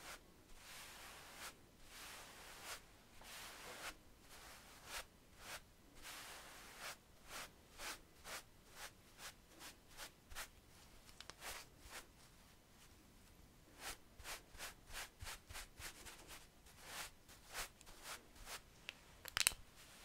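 Two wide paintbrushes sweeping over the bare skin of a neck and scalp: a run of soft, short bristle swishes, about one or two a second. They come faster in the last few seconds, with one sharper, louder stroke near the end.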